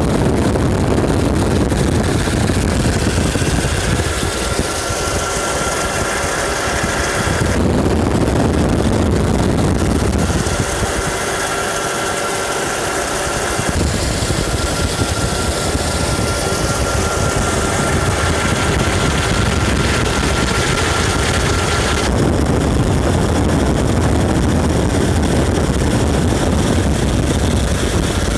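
Helicopter turbine and rotor noise heard from aboard: a loud, steady drone with a high whine. The sound changes abruptly several times.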